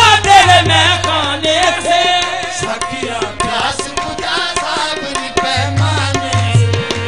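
Qawwali music: singing with tabla accompaniment. The voice wavers through quick ornamented runs in the first couple of seconds, then gives way to steadier held notes.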